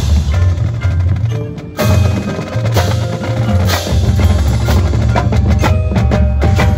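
High school marching band playing, led by its percussion: drumline snares, tenors and bass drums with front-ensemble marimbas and mallet keyboards. The music briefly dips about a second and a half in, then comes back in with a sharp loud hit.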